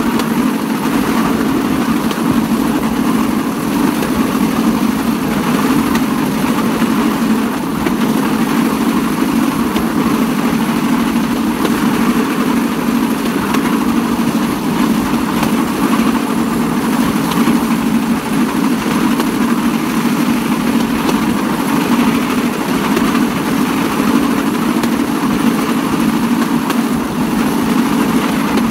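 Bamboo train (norry) travelling along the rails, its small petrol engine running at a steady drone.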